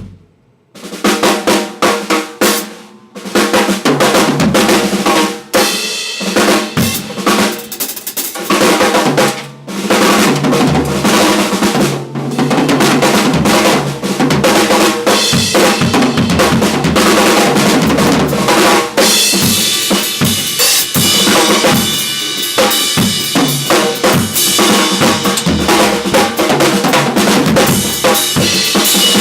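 Acoustic drum kit played solo: kick drum and snare with fills, starting about a second in and growing denser, with more cymbal wash in the second half.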